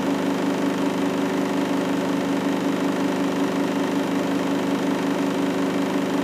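Front-loading washing machine running a 60 °C wash cycle, giving off a steady hum.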